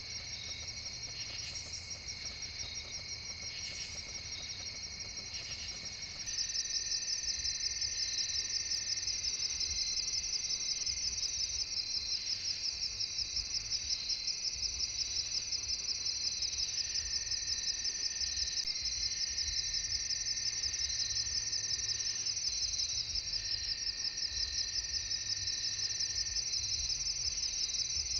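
Night chorus of crickets and other insects: a dense, fast-pulsing high trill over steadier lower chirring. It gets louder about six seconds in.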